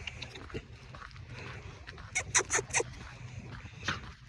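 Heavy panting: a quick run of four short breaths about two seconds in and another near the end, over a steady low hum.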